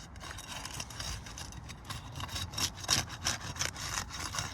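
Repeated rough scraping as the sealed rows of roof shingles are pried loose, breaking the seal so the shingles can be lifted.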